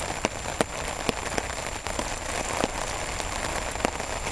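Steady rain falling, with single heavy drops tapping sharply every second or so.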